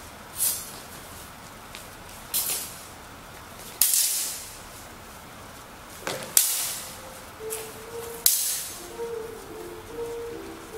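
Steel broadswords clashing during sparring: a series of sharp metallic strikes a second or two apart, each with a brief ring. The loudest come about four, six and eight seconds in.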